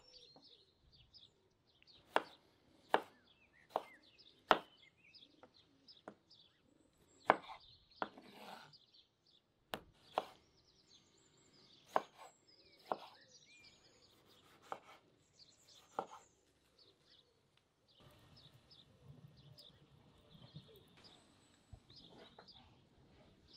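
Chef's knife slicing and chopping tomatoes on a wooden cutting board: a sharp knock each time the blade meets the board, irregular, about one a second. The knocking stops about 17 seconds in, leaving birds chirping in the background.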